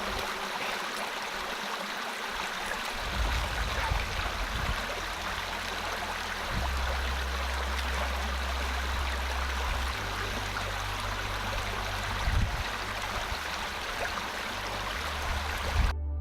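Steady rushing of a stream, with a low rumble underneath that shifts in level a few times.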